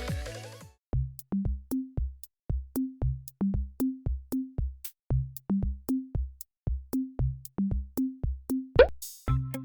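Background electronic music. A fuller passage fades out in the first second, leaving a sparse drum-machine beat of pitched bass-drum hits and light high ticks, about two to three hits a second. A quick rising sweep near the end brings a fuller beat back in.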